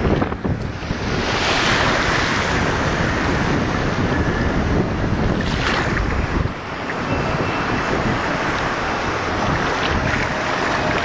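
Wind buffeting the microphone over small waves washing and foaming in shallow surf, with a couple of louder rushes of water and wind.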